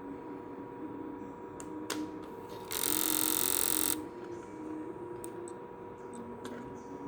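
Slim PlayStation 2 disc drive's laser sled mechanism buzzing loudly for about a second, with scattered light clicks before and after. This is the fault where the laser lens keeps driving forward past its stopping point and clicking, so the console won't read a disc.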